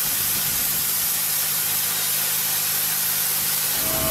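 Pressure washer with a rotary nozzle blasting water against a boat hull to strip fouling: a steady, loud hiss of spray with a low steady hum underneath that drops out near the end.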